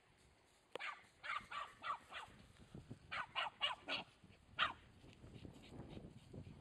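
Border Terrier barking in quick runs of short, high, sharp yaps, about a dozen in all, falling silent about two-thirds of the way through. A low rumble follows.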